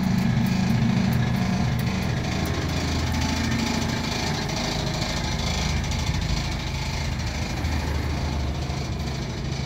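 Iveco Daily van's engine idling steadily.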